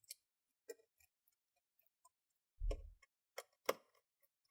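Scattered small clicks and taps of screws being set into a laptop's plastic bottom cover, with a duller knock about two and a half seconds in and the sharpest click about a second later.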